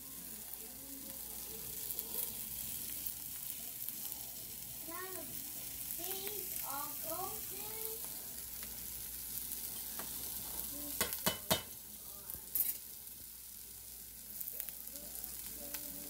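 A steady sizzle of food frying in a pan on a hot stovetop. A few sharp clicks come a little past the middle.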